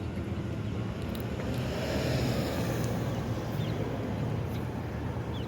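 Low, steady engine rumble of a passing boat on the Bosphorus, swelling briefly about two seconds in.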